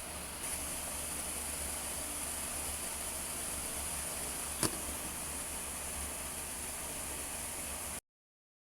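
Steady background hiss with a single sharp click a little past halfway. The sound cuts off abruptly near the end.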